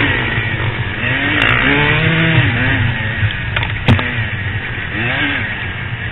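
Off-road motorcycle engines revving up and falling back several times over a steady low rumble, with one sharp knock about four seconds in.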